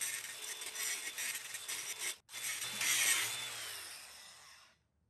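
DeWalt angle grinder with a grinding wheel grinding down the mushroomed head of a riveted bolt so it sits flush with the steel frame hanger, ready to be driven out. It is a steady, high-pitched grinding noise that breaks off briefly about two seconds in, comes back with a short falling whine, and fades out near the end.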